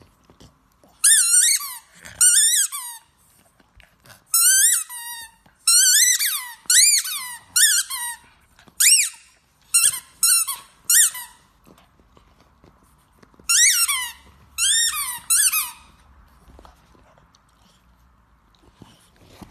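Squeaky dog toy squeaking in quick runs of high-pitched squeaks as a pug bites down on it, with short pauses between the runs. The squeaking stops about three-quarters of the way through.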